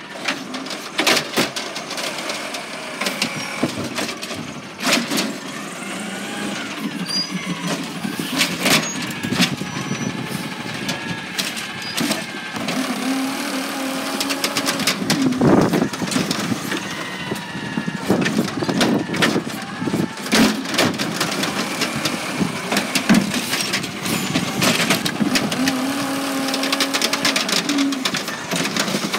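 Natural-gas automated side-loader garbage truck running as its hydraulic arm grips, lifts and tips a wheeled trash cart into the hopper, the hydraulic whine rising and falling with each arm movement. Sharp clanks and bangs come again and again as the cart and arm knock against the truck.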